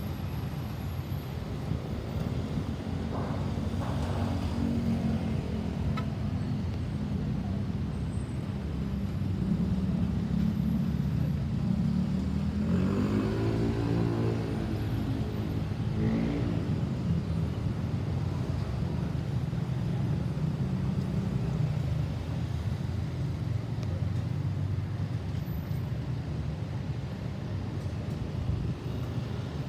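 Road traffic running steadily, with one vehicle passing close by about halfway through, swelling and then fading.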